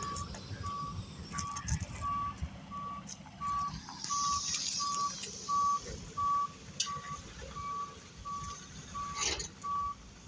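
Tractor-trailer's reverse alarm beeping steadily at one pitch, about one and a half beeps a second, over the low rumble of the truck's engine: the truck is backing up.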